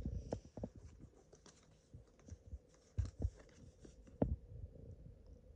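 Quiet handling sounds of trading cards and foil booster-pack wrappers being sorted by hand, with scattered light clicks and a few soft knocks about three and four seconds in.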